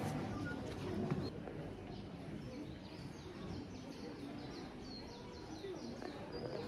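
A small bird calls a quick series of short, high, falling notes, about three or four a second, starting a couple of seconds in. Under it runs a steady low outdoor murmur.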